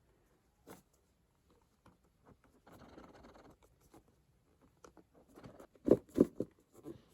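Small objects being handled by hand: scattered light clicks, a short rustling scrape about three seconds in, and a few sharp taps near the end, the loudest of them two close together.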